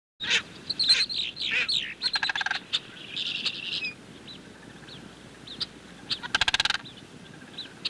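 High, quick chirping calls sweeping downward, then scattered short whistles, with two brief rapid buzzy trills, one about two and a half seconds in and one near the end.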